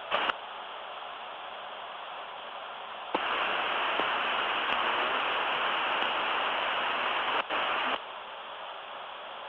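Steady hiss of cockpit voice recorder audio from the Embraer Legacy 600, with a couple of clicks at the start. About three seconds in, a louder rush of radio static switches on, breaks briefly, and cuts off sharply about five seconds later.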